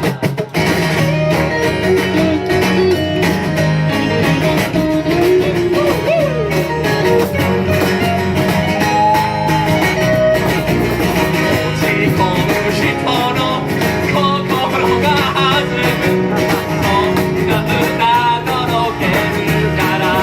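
Blues-rock band playing live, an instrumental break with a lead guitar bending notes over strummed acoustic guitar, bass and cajon.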